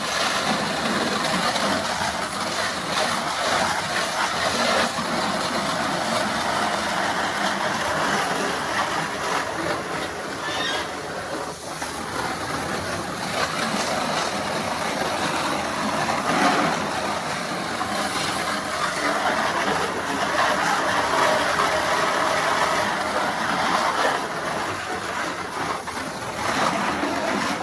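Water spraying steadily with a rushing hiss that starts abruptly, as when the geese's pool is filled or rinsed.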